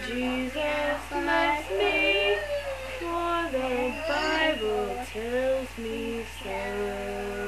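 A four-year-old girl singing, with a woman's voice singing along: a run of short sung notes, ending in one long held note.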